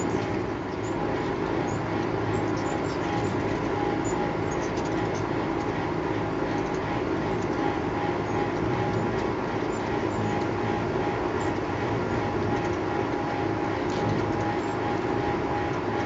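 Wings of several ruby-throated hummingbirds humming steadily around a nectar feeder, with faint high chirps and ticks scattered through.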